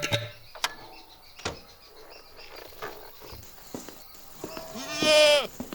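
A goat bleats once, loud and wavering, near the end, dropping in pitch as it stops. Before it there are faint scattered clicks and chirps.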